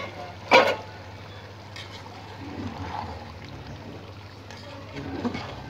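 Rice and chicken broth bubbling at the boil in a large metal pot as a metal spatula stirs through it, with one sharp clank about half a second in.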